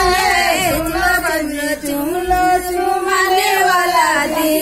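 Group of women singing a slow, chant-like song together in unison, drawing out long held notes.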